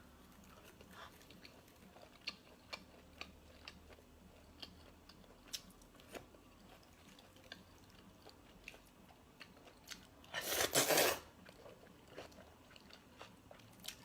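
A person eating close to the microphone: soft, wet chewing with many small clicks, and one loud crunchy bite lasting most of a second, a little after ten seconds in.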